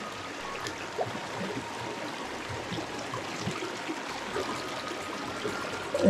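Shallow rocky mountain stream babbling steadily as it runs over stones and pebbles.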